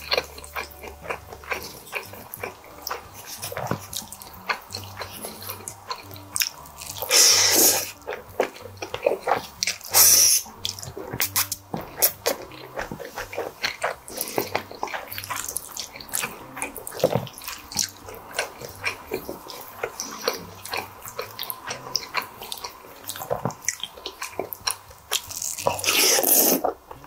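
Close-up eating sounds of squid ink spaghetti: wet chewing and lip-smacking, with loud slurps of noodles about seven and ten seconds in and a longer slurp near the end.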